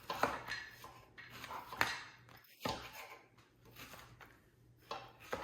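Strawberries being sliced with a serrated knife and a cup slicer: scattered sharp knocks and clicks on the cutting surface, about five in all.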